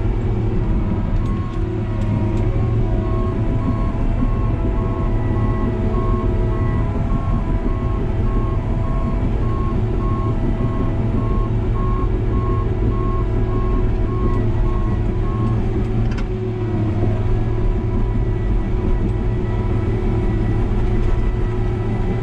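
New Holland D180C crawler dozer's diesel engine running steadily under load, heard from the cab, with a backup alarm beeping about twice a second as the machine reverses; the beeping stops about 15 seconds in, and a single knock follows shortly after.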